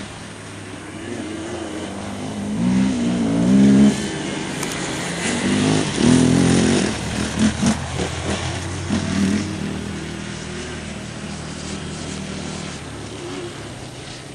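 Yamaha sport quad (ATV) engines revving up and easing off in turn, loudest a few times in the first two thirds, then settling to a steadier, lower drone.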